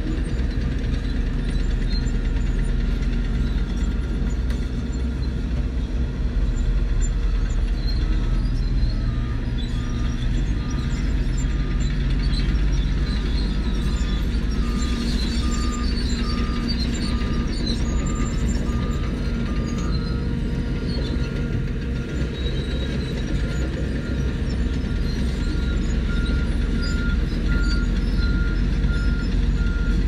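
Heavy diesel engines of a crawler bulldozer and a dump truck running steadily, with a vehicle's reversing alarm beeping in a regular on-off rhythm from about a quarter of the way in to two-thirds, and again near the end.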